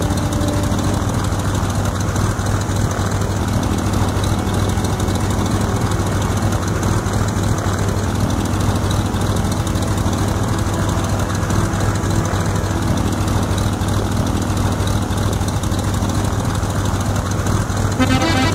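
An engine running steadily at idle: a constant low drone with rapid, even firing pulses and no change in speed.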